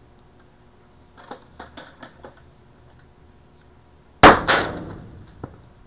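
A heavy hammer smashing a cell phone on pavement: two hard blows in quick succession about four seconds in, after a few light handling clicks.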